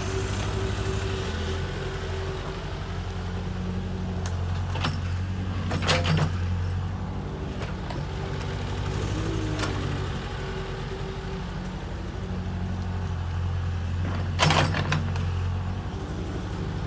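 Kobelco excavator's diesel engine running steadily under load, its low hum swelling and easing. Two sharp metallic clanks come about six seconds in and again near the end.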